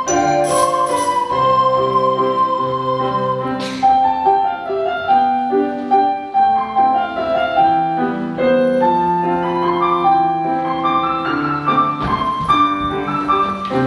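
A recorder ensemble playing a classical-style arrangement in several parts at once, with held, steady notes moving in step.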